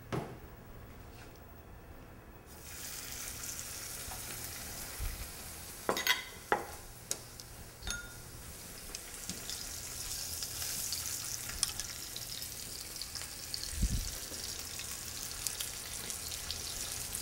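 Floured beef-and-asparagus roll sizzling in hot oil in a nonstick frying pan; the steady crackling sizzle switches on abruptly about two and a half seconds in, as the roll goes into the oil. A few light knocks come around six to eight seconds in.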